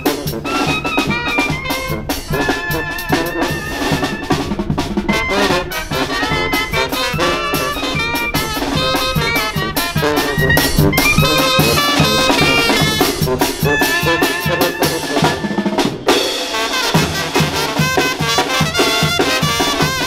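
Zacatecan tamborazo band playing: trumpet, trombone and clarinet carry the melody over a sousaphone bass, with snare drums and a tambora bass drum with cymbal keeping a steady beat.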